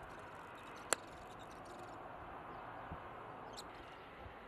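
Faint, steady outdoor background hiss from a shoreline, with one sharp click about a second in.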